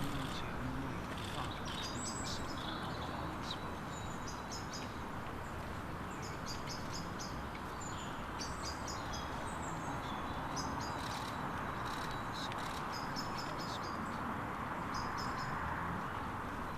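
Small songbirds chirping in short quick runs of high notes, over a steady outdoor background hiss.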